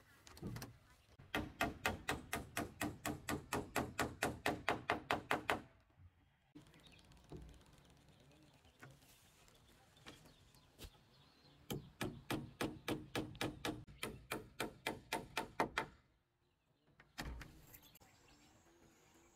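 Hammer driving nails into a wooden roof beam: a fast run of blows, about five or six a second, lasting about four seconds, then a pause and a second run just as fast. A couple of single knocks follow near the end.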